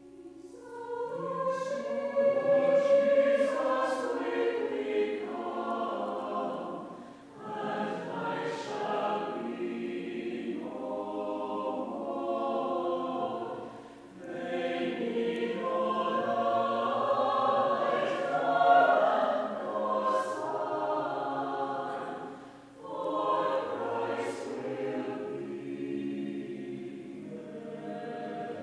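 Mixed choir of men and women singing together, coming in about half a second in and going on in long phrases with brief pauses between them.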